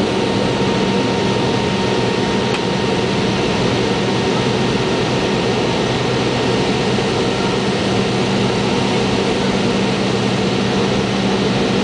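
Cabin noise of a McDonnell Douglas MD-82 in flight, heard from inside the cabin: its tail-mounted Pratt & Whitney JT8D turbofans running with the rush of air along the fuselage, a loud, even noise with a steady low hum under it.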